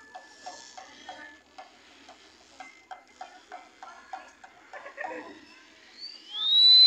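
Voladores' small drum tapped in a steady beat, about three strokes a second, under a thin high reed-flute tone. Near the end a much louder high whistle glides up and holds.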